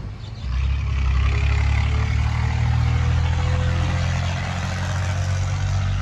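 Sawmill band saw running and cutting lengthwise through a thick timber slab: a steady low motor hum under the hiss of the blade in the wood, louder from about half a second in.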